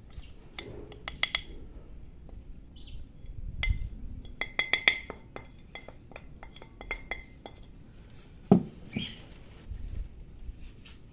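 A spatula scraping and tapping spices off a ceramic plate, with runs of quick, ringing clinks of ceramic on ceramic. One louder knock comes about eight and a half seconds in.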